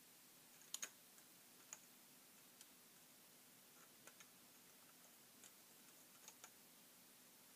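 Near silence broken by about ten faint, scattered small clicks from rubber loom bands of a honeycomb bracelet as it is stretched, with a close pair about a second in.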